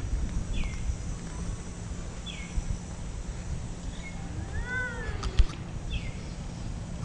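Short, high, falling chirps repeat every second or two, with one longer call a little past the middle that rises and falls, over a low rumble of wind on the microphone. A single sharp knock comes about five and a half seconds in.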